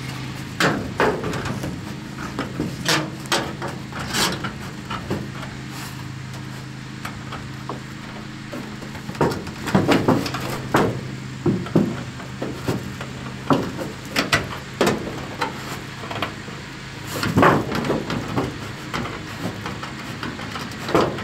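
Sheet-metal siding of a mobile home being cut with hand snips: irregular sharp snips and crunches, some in quick runs, over a steady low hum.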